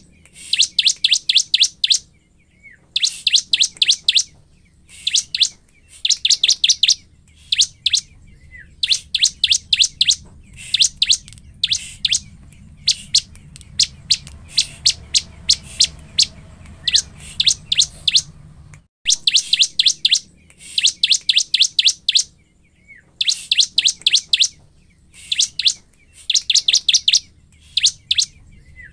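Bar-winged prinia (ciblek) in full song: fast runs of high, sharp notes delivered in phrases of about a second, repeated over and over with short pauses between, the kind of excited 'gacor' song that is played to provoke other ciblek.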